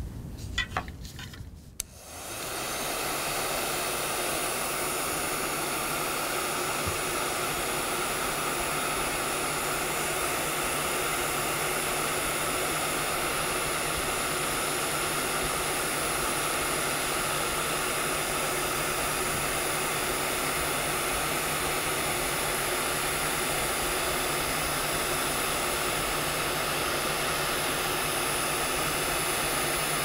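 A few short clicks, then an electric heat gun starts up about two seconds in and runs steadily, its fan blowing with a steady hum while it shrinks heat-shrink tubing on a cable.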